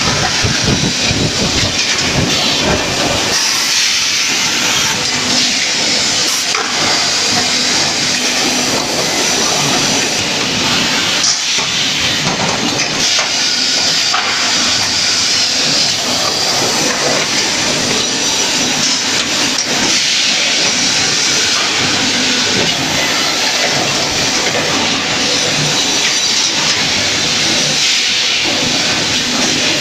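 Steady, loud hissing machine noise from a wheel rim flash butt welding line, with crackling in the first few seconds.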